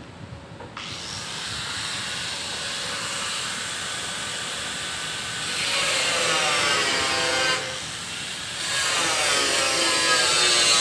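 A handheld electric power tool working steel, switched on suddenly about a second in and running hard, with a short drop about eight seconds in before it bears in again.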